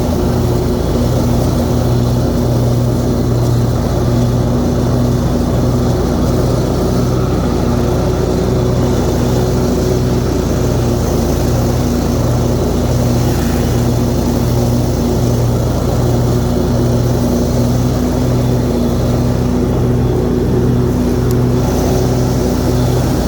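Hustler Raptor SD zero-turn mower's 25-horsepower Kohler V-twin engine running steadily under load with the blades engaged, mowing wet grass.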